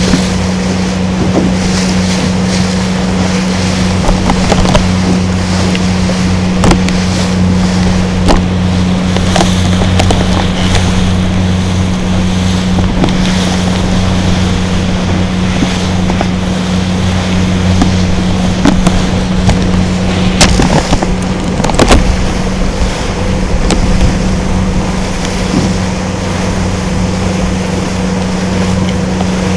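A boat's engine running steadily with a constant low hum, over a rushing haze of wind on the microphone and water along the hull. A couple of sharp knocks come about two-thirds of the way through.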